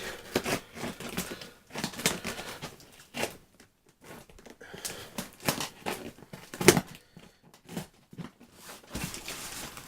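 Parcel packaging being cut open and handled: irregular scrapes, clicks and tearing sounds, with two sharper snaps about two seconds in and near seven seconds.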